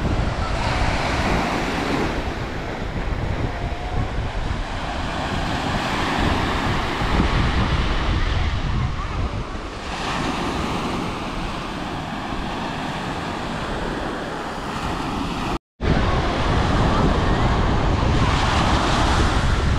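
Small waves breaking and washing up a sandy shore, with wind rumbling on the microphone. The sound drops out for an instant about four seconds before the end.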